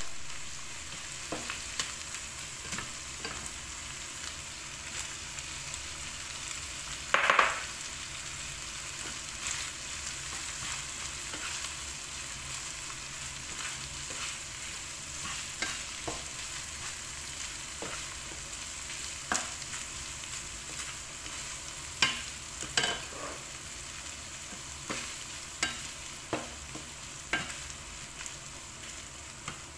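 Corned beef, onion and diced potato frying with a steady sizzle in a nonstick pan, stirred with a plastic spatula that scrapes and taps against the pan now and then. One louder burst about seven seconds in.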